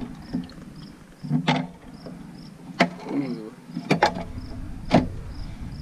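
Beer pouring from an aluminium can into a glass, then about four sharp clinks as the glass and can are set down on a glass tabletop. Crickets chirp steadily underneath, about two chirps a second.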